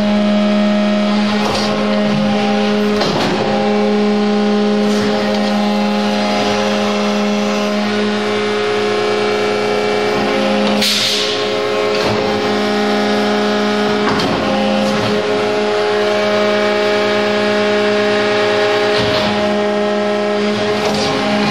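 Horn hydraulic CNC tube bender running through a tight-radius bend on 4-inch stainless tube: a loud, steady hum of even pitch. Short rushing surges come and go as the machine works through its cycle, and the strongest is about eleven seconds in.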